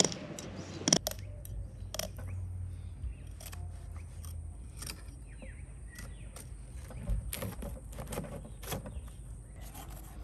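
Filleting knife scraping and clicking against the fish's bones and scales as the fillet is worked free, a run of short sharp clicks and scratchy scrapes.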